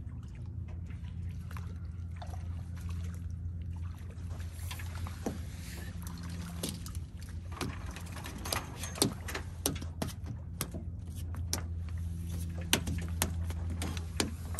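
A hooked fish being played in at the water's surface: irregular splashes and sharp knocks and clicks that begin about four seconds in and come thickest near the end, over a steady low hum.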